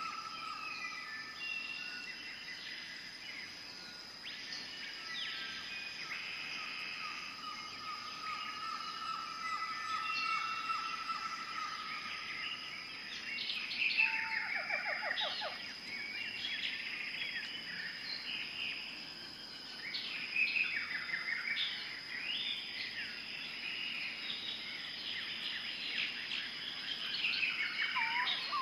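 Tropical jungle ambience: many birds calling and chirping over a steady high-pitched insect drone. There are quick trills around the middle, and a lower steady hum fades out about a third of the way in.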